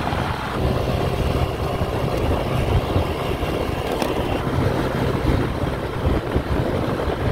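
Old first-generation Yamaha Cygnus scooter's single-cylinder engine running steadily while riding along the road, under a rush of wind and road noise.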